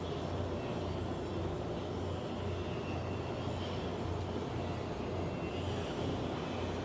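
Steady low mechanical drone of heavy machinery running, with a constant low hum under an even rushing noise.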